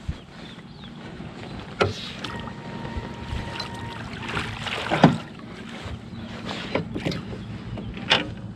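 Sounds aboard a small fishing boat sitting on calm water: a steady low hum under occasional knocks and clunks, the sharpest about two, five and eight seconds in. A thin held tone sounds for a second and a half, a couple of seconds in.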